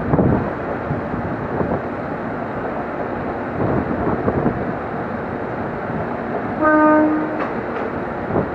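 Short single horn blast of a JR Kyushu 787 series electric train, one steady tone under a second long about two-thirds of the way in, over the steady rumble of the train standing at the platform, with a few dull knocks.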